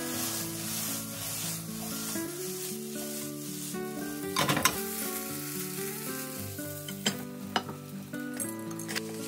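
Shrimp fried rice sizzling in a frying pan as it is stirred with a spatula, just after soy sauce and sesame oil were drizzled onto the hot side of the pan. The sizzle dies down about halfway through, and there are a few sharp knocks of the spatula against the pan.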